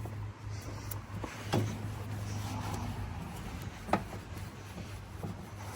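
A few light knocks and handling sounds, spaced over several seconds, over a steady low hum.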